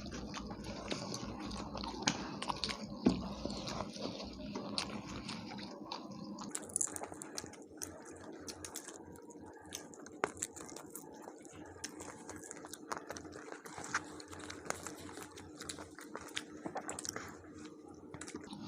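People chewing and biting into tandoori chicken and naan, with many small scattered clicks and smacks of eating, over a faint steady hum.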